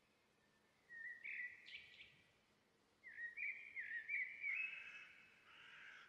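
A bird calling: a short cluster of notes about a second in, then a longer run of quick, jerky chattering notes from about three seconds in, fading near the end.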